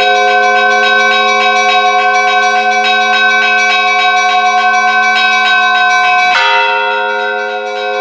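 Church bells ringing: quick repeated strikes of the smaller bells over the long hum of the larger ones. About six seconds in comes one heavier stroke, after which the quick strikes stop for a moment while the bells ring on.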